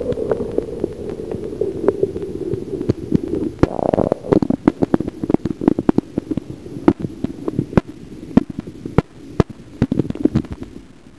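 Sound recorded by a camera held under river water. There is a muffled, steady low rumble of water around the housing, with many sharp, irregular clicks and knocks.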